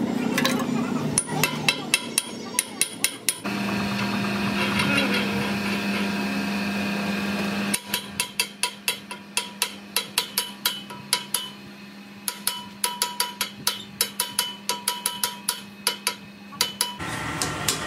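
Hand hammer striking a steel collar fitted on a threaded trolley axle tube, sharp metal-on-metal blows with a short ring, in quick runs of about three a second. A steady hum runs under the blows from a few seconds in.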